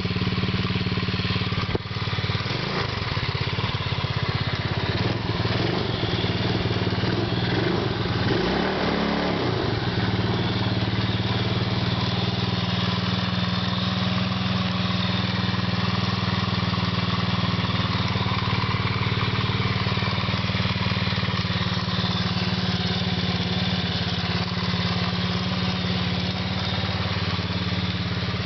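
Small 125cc ATV engine idling while it warms up, running a little unevenly for the first several seconds, then settling into a steady idle.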